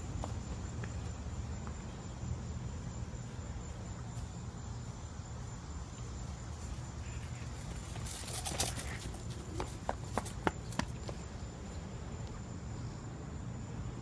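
Footsteps over rough ground under a steady low rumble, with a run of sharp snaps and clicks a little past halfway.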